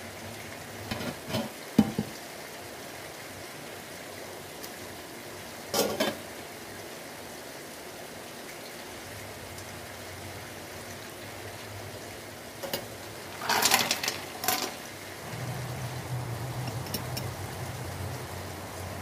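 Kitchen handling sounds over a steady hiss: a few short clinks and knocks of steel cookware and utensils, a cluster near the start, one at about six seconds and a longer run about two-thirds of the way through. A low hum joins near the end.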